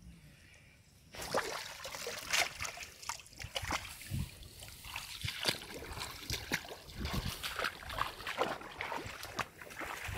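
Irregular splashing and sloshing of shallow water, starting about a second in after a quieter moment and going on as a busy run of small splashes and crackles.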